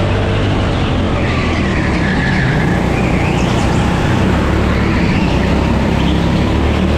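Go-kart's 9 hp four-stroke engine running hard at speed, heard onboard with a rushing noise of wind and tyres. About two seconds in the pitch dips, then climbs again a second later as the kart goes through a corner and accelerates out.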